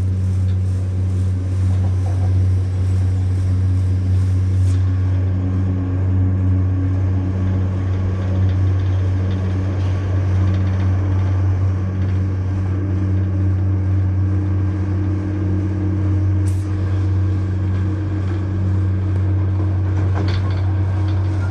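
Diesel passenger train running at speed, heard from inside the carriage: a steady low engine drone with a couple of higher tones over the rumble of the wheels on the track.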